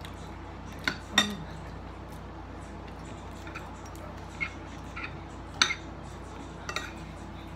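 Metal forks clinking against dinner plates in a handful of scattered sharp clicks, the loudest about a second in and again near the six-second mark, over a steady low hum.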